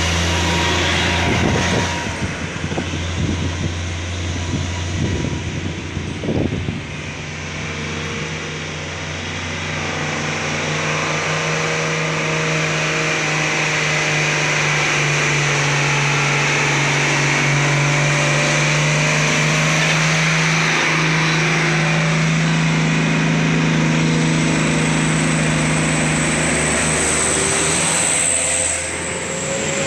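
Diesel engines of heavily loaded sugarcane trucks pulling up a steep climb: a steady low engine drone with tyre and road noise as one truck passes close by and another labours up towards the microphone.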